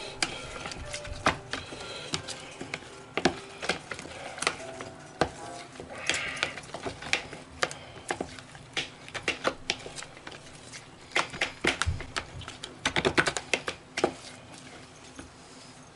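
A plastic spoon stirring thick tartar sauce in a clear plastic bowl, knocking against the bowl's side in a run of irregular clicks and taps that come thickest and fastest for a few seconds near the end.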